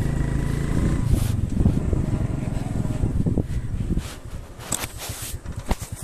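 Motorcycle engine running steadily as it rides along a field track, dropping away after about four seconds to leave scattered short scuffs and knocks.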